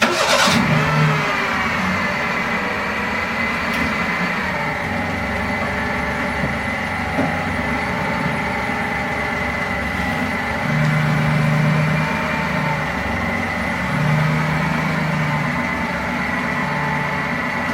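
A Toyota Passo being driven: its engine runs steadily with road noise, and the engine note swells a little twice in the second half as it pulls harder.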